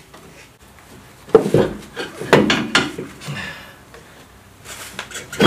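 Steel breaker bar clanking against the car's lower control arm as it is worked into the hole in the arm to lever the arm down: a sharp knock about a second in, a cluster of clanks, then more clanking near the end.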